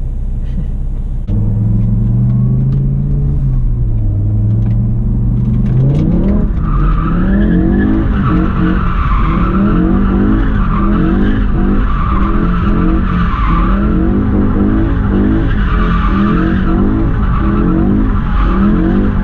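BMW M5 E60's V10 engine heard from inside the cabin, running at a steady note, then climbing sharply in pitch about six seconds in. From there it stays loud, its pitch repeatedly rising and falling.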